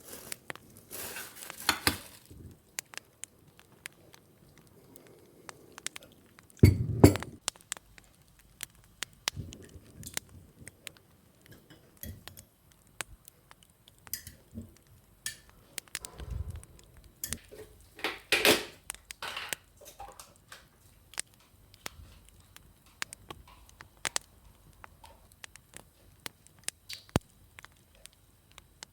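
Kitchen handling sounds: dishes and cutlery clinking and knocking in scattered clicks, with louder knocks about seven seconds in and again near eighteen seconds.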